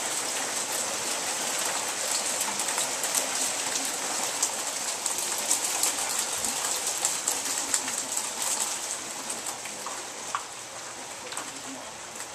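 Hail and rain pelting down: a dense patter of many sharp ticks from hailstones striking hard surfaces. It eases off over the last few seconds.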